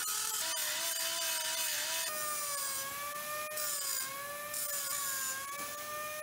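Pneumatic vertical grinder running at speed with its disc grinding the edge of a steel sheet: a steady high whine over a harsh hiss, its pitch wavering a little as the disc bears on the metal.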